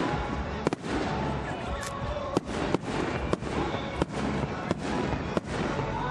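Fireworks show: aerial shells bursting in a run of about eight sharp bangs, roughly one every half second to a second, over a continuous background rumble.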